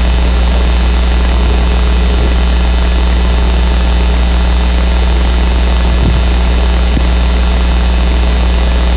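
Loud steady electrical hum, a low buzz near 60 Hz with a weaker tone about three times higher, under an even hiss.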